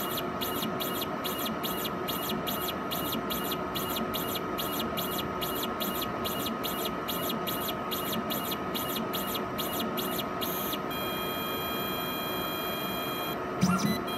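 PATHFAST analyzer's pipetting mechanism at work: a high motor whine pulsing on and off about three times a second as the tips draw liquid up and down. About three-quarters of the way through it changes to a steady whine, with a short thump near the end.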